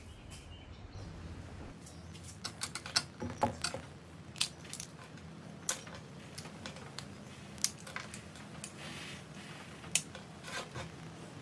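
Irregular sharp clicks and clinks of broken pieces of an old cleaver handle and its metal pins knocking against the bare steel tang and a wooden workbench as the handle is stripped off, starting about two seconds in.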